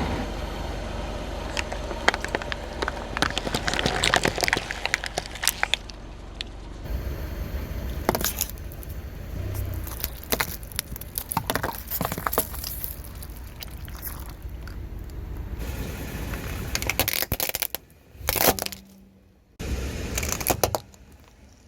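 A car tyre rolling over and crushing objects: bursts of crackling and crunching over the low sound of the car, the sound changing abruptly several times.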